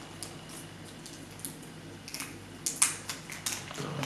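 Light clicks and taps of small model-kit parts and screws being handled against a wooden tabletop, with a short run of sharper clicks a little before three seconds in.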